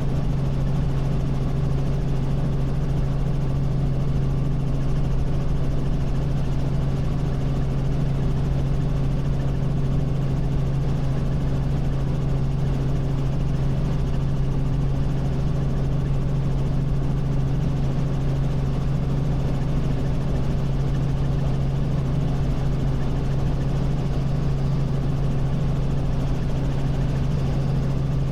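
Robinson R44 Raven I helicopter in flight, its Lycoming six-cylinder piston engine and rotors making a steady, unchanging drone with a strong low hum.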